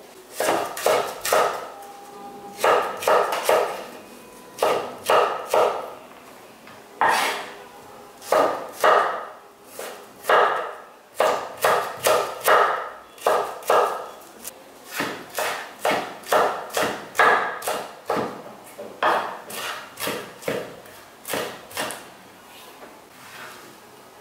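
Kitchen knife chopping garlic cloves on a wooden cutting board: quick runs of sharp knocks of the blade on the wood, which stop about two seconds before the end.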